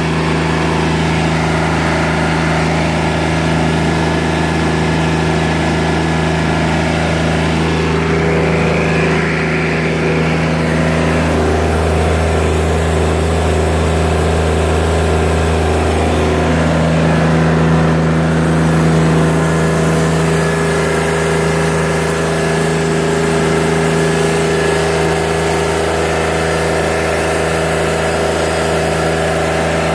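Portable band sawmill's engine running steadily under load while its band blade cuts through an English walnut log.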